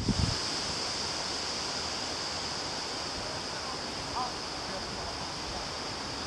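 Steady outdoor background hiss. Wind buffets the microphone right at the start, and a faint short rising-and-falling call sounds about four seconds in.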